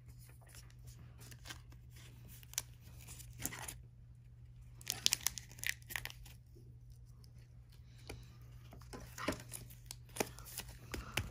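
Crinkly wrapper of a trading card pack being torn open and crumpled, in scattered bursts of crackling, over a steady low hum.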